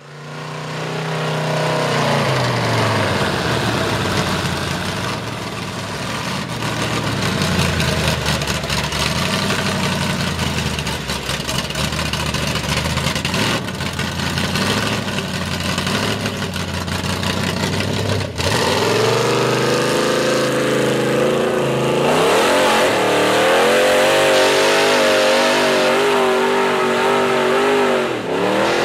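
Lifted GMC pickup's V8 with open headers revving hard under load in deep mud, the engine note rising and falling with the throttle. About two-thirds of the way through, the sound breaks off abruptly and comes back as a higher, wavering engine note.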